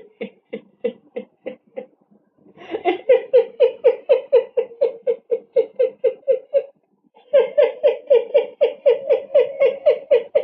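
A person laughing hard in rapid, rhythmic ha-ha pulses, about five or six a second, in three bouts: a fainter one at the start, then two louder, longer ones after short pauses.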